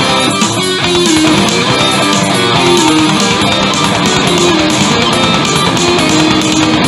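Background music led by guitar, playing steadily.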